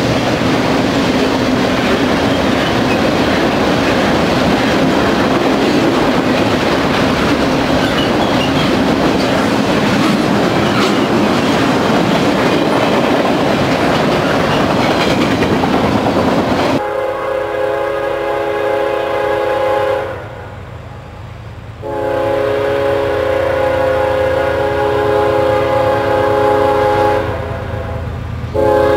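Double-stack container freight train rolling past close by: steady wheel-on-rail rumble and clatter. About two thirds of the way through it changes abruptly to a locomotive air horn sounding a chord of several steady tones in long blasts with short breaks, sounding for a grade crossing.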